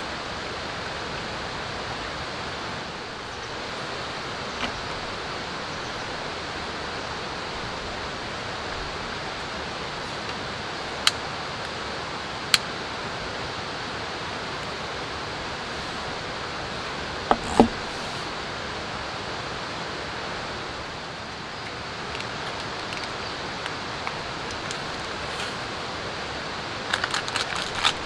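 A steady rushing noise throughout, with a few sharp metallic clicks and clinks of stainless camp-stove gear being handled: single clicks about 11 and 12½ seconds in, a clink around 17 seconds, and a quick run of small clinks near the end as an aluminium mess tin is set on the grill over the alcohol burner.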